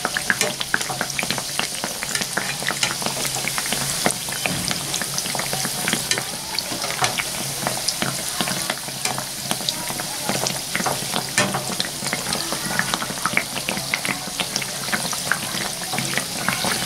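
Malpua (sweet banana-batter pancakes) deep-frying in hot oil in a small kadhai: a steady sizzle with many small crackling pops.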